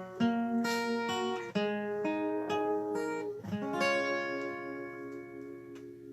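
Acoustic guitar strumming the closing chords of a song. The last chord, about four seconds in, is left to ring and fades away.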